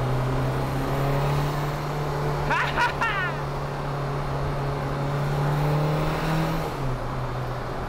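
VW Rabbit turbodiesel engine heard from inside the cabin, pulling under load with a steady drone that rises slowly in pitch. About seven seconds in the note drops suddenly, as at an upshift.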